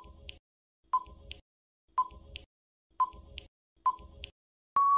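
Countdown timer sound effect: five short high beeps, one each second, each followed by a faint tick. Near the end comes a long steady beep as the countdown runs out.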